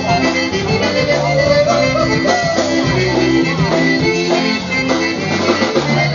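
Live polka band playing dance music, with trumpets over a bass line that moves in a regular pattern.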